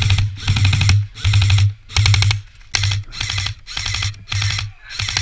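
Airsoft electric rifle firing in a string of short full-auto bursts, each a rapid run of clicks over the whine of the gearbox motor, with brief pauses between bursts.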